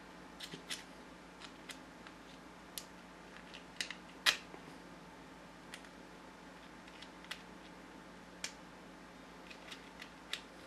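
Scattered faint clicks and ticks of small metal RC differential parts and a hand tool being handled, with one sharper click about four seconds in.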